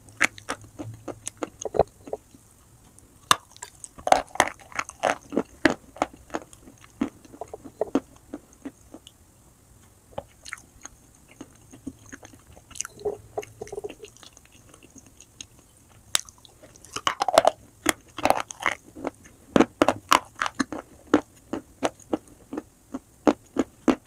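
Close-miked biting and chewing of hard white chalk chunks: irregular dry crunches, busiest about four to seven seconds in and again from about seventeen seconds on, sparser in between.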